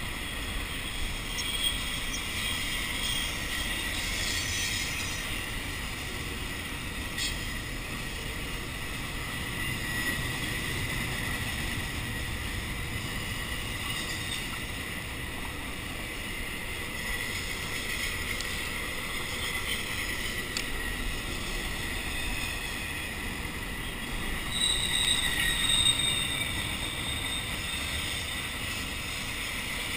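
Intermodal container freight train rolling past, a steady noise of wheels on rail with a thin high wheel squeal that grows louder near the end.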